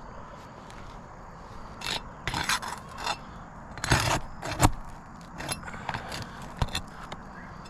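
Asphalt roofing shingles being pried up and their nails worked loose: irregular scraping with several sharp clicks and knocks, the loudest about four seconds in.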